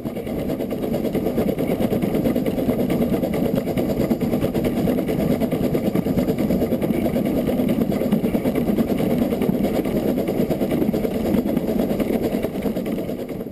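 Narrow-gauge steam locomotive, Isle of Man Railway No. 4 Loch, a Beyer Peacock 2-4-0 tank engine, running steadily under power up a steep gradient: a continuous low rumble of exhaust and wheels on the rails.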